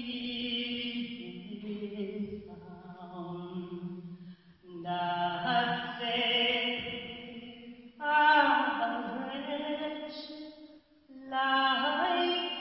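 A woman singing into a microphone in slow, long-held notes, in phrases broken by short pauses every three seconds or so.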